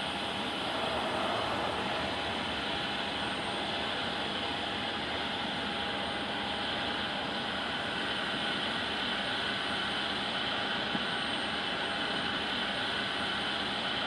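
Boeing 737-800's CFM56-7B turbofan engines running at low power as the airliner taxis: a steady rush with a steady high whine over it.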